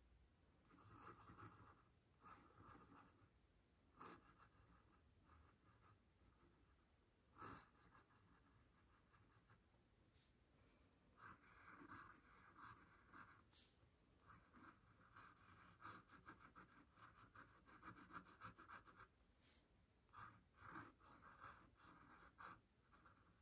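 Faint scratching of a pen nib on sketchbook paper in short stop-start drawing strokes, with a couple of light taps.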